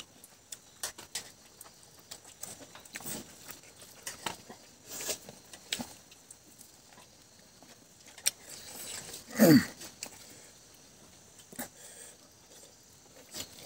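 Close-up eating sounds: wet chewing and lip-smacking clicks as rice and meat curry are eaten by hand. About nine and a half seconds in comes one loud, short, voice-like call that falls in pitch.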